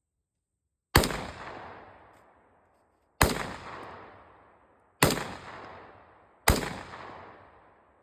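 Four single gunshots, unevenly spaced about one and a half to two seconds apart, each a sharp crack followed by an echo that dies away over a second or more.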